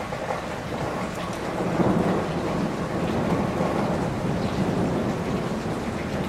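Steady rain with a low rumble of thunder that swells about a second and a half in and slowly fades.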